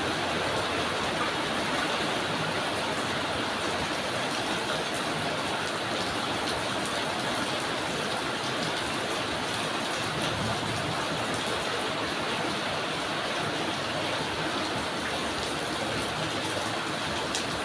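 Drizzling rain falling steadily: an even hiss with faint scattered drop ticks.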